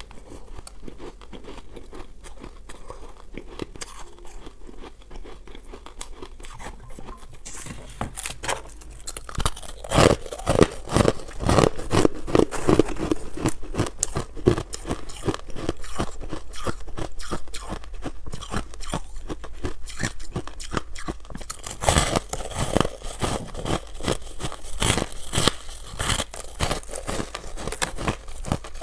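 Crushed and shaved ice being bitten and chewed: a steady run of crisp crunches. The crunching is finer and softer for the first several seconds, then turns loud and chunky from about ten seconds in, with hard bites near ten and twenty-two seconds.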